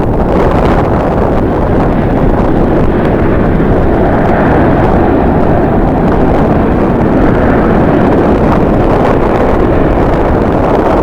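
Strong wind buffeting the microphone: loud, gusty rumbling noise with no steady tone, swelling a little about four seconds in.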